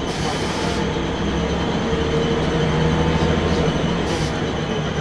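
Scania L94UB single-deck bus on the move, heard from inside the passenger saloon: a steady engine and drivetrain drone over road noise, a little louder in the middle.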